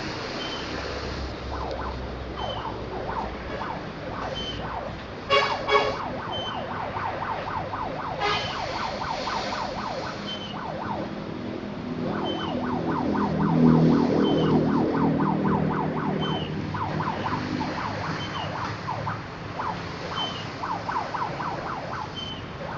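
Road traffic with a fast, siren-like warbling horn running through most of it and two short, loud horn blasts about five and eight seconds in. A heavy vehicle's rumble swells and fades around the middle as it passes.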